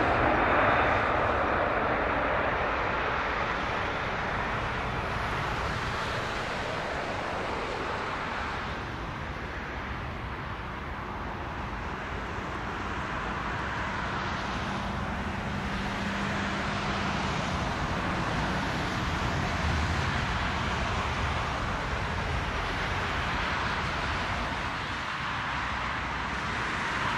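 Jet engine noise from an Airbus A380, a broad, steady rushing sound that is loudest at the start and eases off over the first several seconds before holding fairly level.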